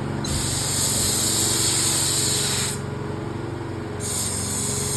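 Air hissing from a blower nozzle in two long blasts, the first lasting about two and a half seconds and the second starting about four seconds in, blowing sanding dust and wood debris out of log wall seams and lag bolt holes. A steady low hum runs underneath.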